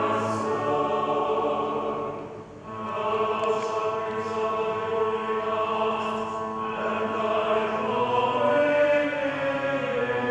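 A choir singing a hymn in sustained, held chords, with a brief break for breath about two and a half seconds in.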